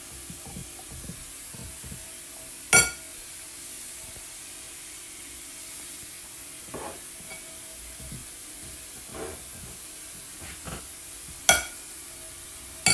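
Metal spoon stirring a mashed potato, pea, egg and cheese filling in a glass bowl: soft scraping, with two sharp clinks, one about three seconds in and one near the end.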